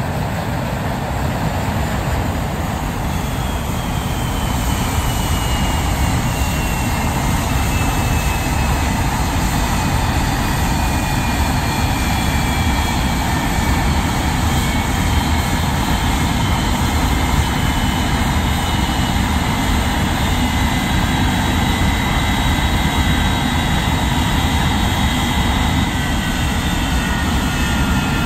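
English Electric Lightning's twin Rolls-Royce Avon turbojets running down, a whine falling slowly in pitch over a steady rumble, typical of the engines spooling down after shutdown.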